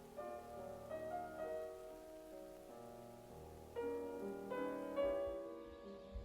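Soft piano music: gentle notes and chords, louder from about four seconds in.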